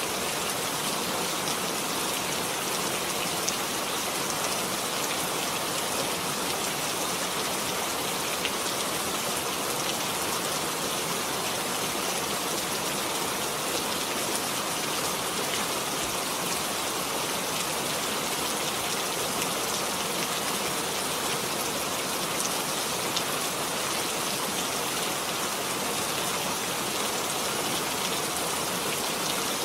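Steady rainfall, a dense even hiss of rain with scattered individual drops ticking through it.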